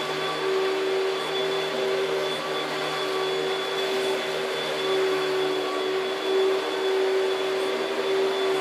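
Panasonic Jet-Flo MC-6217 upright vacuum cleaner running steadily: a constant motor hum with a thin high whine over a rush of air.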